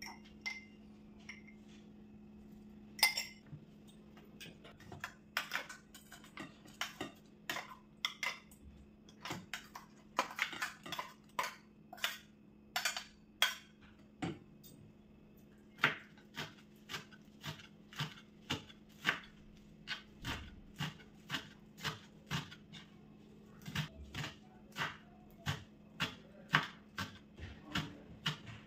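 Kitchen utensil sounds: a spoon scraping and tapping coarsely ground onion and green chilli out of a steel mixer jar into a steel bowl, in quick clusters of knocks. Later comes a fairly even run of knocks, one or two a second, as a knife chops greens on a wooden board. A faint steady hum runs underneath.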